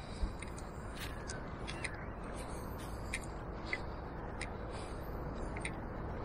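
Scattered short bird calls over a steady low background rush.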